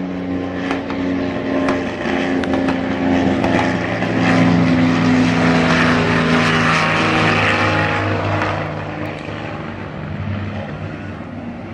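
Propeller engines of a twin-engine airplane droning overhead with a steady note, getting louder toward the middle and fading toward the end.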